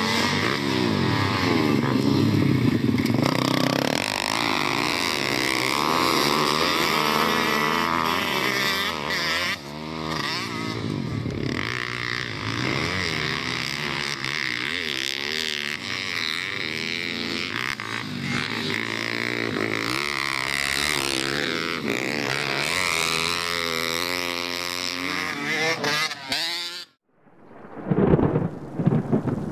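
Several pit bike engines racing, revving up and down as the riders accelerate and back off through the turns. Near the end the engines cut off suddenly and a rumble of thunder with rain follows.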